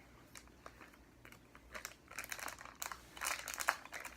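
Plastic blind-bag wrapper crinkling as it is handled and worked at in search of its tear notch: a few scattered crackles at first, then denser crinkling from about halfway.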